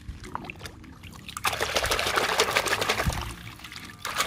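Water splashing and sloshing in a metal basin as a hand swishes and scrubs a toy truck under the surface. A few faint drips come first, the splashing starts about a second and a half in, and it eases off briefly near the end.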